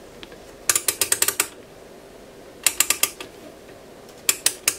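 Rotary range selector switch of a Fluke 845AB voltmeter being turned by hand, clicking through its detents in three quick runs of clicks.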